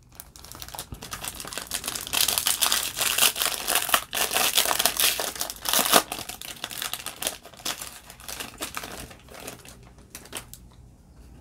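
Foil wrapper of a Topps baseball card pack crinkling and tearing as it is pulled open by hand, loudest in the first half and dying away near the end.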